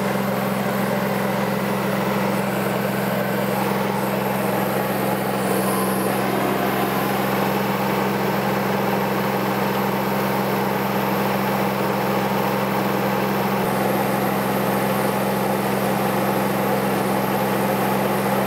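Mini excavator's engine running steadily, a constant hum that holds the same pitch and level throughout.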